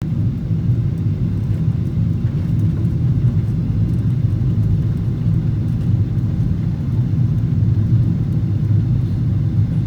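Steady low rumble of airliner cabin noise in flight, from the jet engines and the airflow over the fuselage, heard from inside the cabin.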